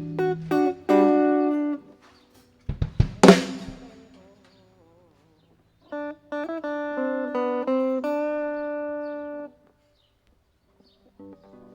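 Guitar playing a few held chords and notes in short phrases with pauses between them. About three seconds in there is a cluster of sharp knocks, the loudest sound here.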